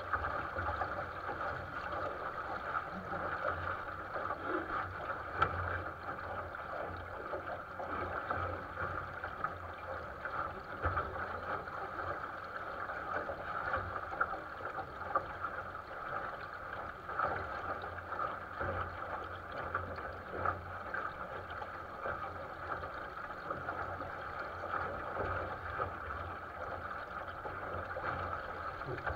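Water rushing and splashing along the hull of a 470 sailing dinghy under sail, a steady hiss with an irregular low rumble underneath.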